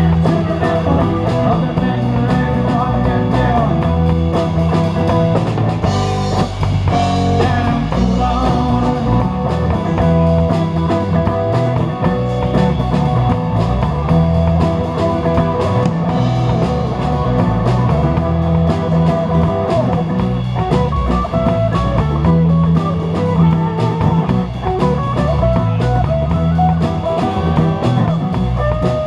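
Live rock band playing: drum kit, electric guitar, bass guitar and acoustic-electric guitar, with a steady beat.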